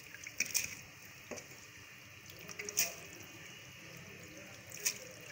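Soaked rice being added to a pot of cooking water and peas: four short wet splashes and slops, spread a second or two apart.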